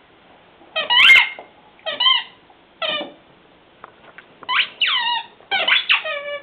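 Dog's rubber squeaky toy squeezed in its jaws, giving a string of short squeaks that slide in pitch: a few spaced ones first, then several in quick succession in the second half.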